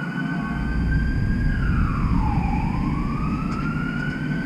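Emergency vehicle siren wailing, its pitch sliding down once about two seconds in and climbing back up. Underneath is a low rumble of traffic that swells about half a second in.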